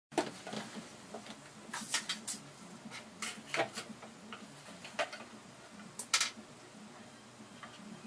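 Scattered light knocks and clicks of a hollow rectangular PVC pipe being handled and turned over, in small clusters about a second apart.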